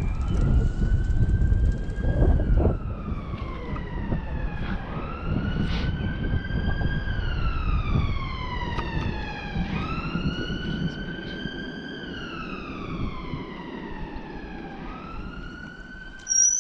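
Emergency vehicle siren on a wail pattern, its pitch sweeping slowly up and falling back about every five seconds and growing gradually fainter, over a low rumbling noise in the first half.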